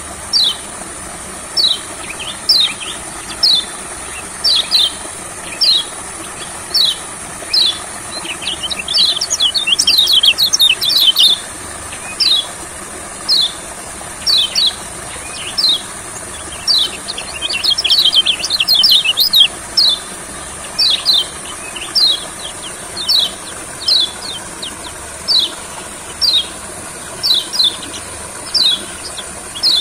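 A caged white-eye (kecial kuning) calling with short, sharp downward chirps, repeated about once a second, breaking into rapid twittering runs about ten seconds in and again near eighteen seconds. A steady high hiss runs underneath.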